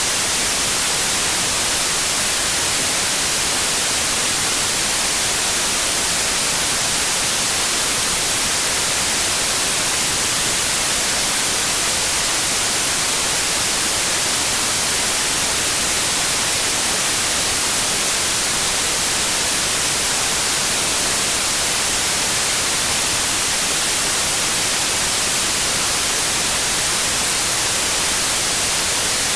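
Synthetic white noise: a steady, unchanging hiss, strongest in the treble, with no tones or rhythm.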